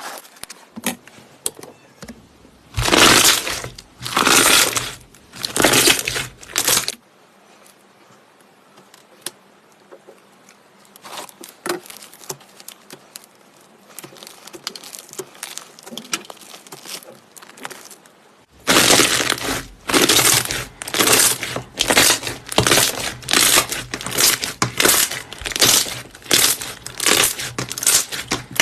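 Slime being pressed and squeezed by hand, making crackling, crunching squishes: three long presses, then a quieter stretch of small clicks, then a faster run of short presses about two a second.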